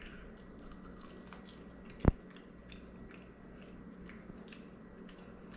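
Faint chewing of a bite of buffalo-sauced grilled chicken wing, with one sharp click about two seconds in.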